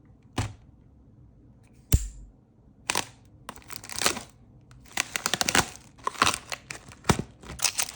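Foil booster pack wrapper being handled, crinkling and crackling in short bursts, with a few sharp clicks and taps.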